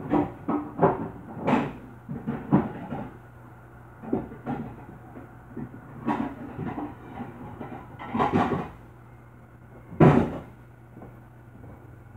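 Kitchen clatter of dishes being handled: irregular knocks and clinks, with the loudest clunk about ten seconds in, over a steady low hum.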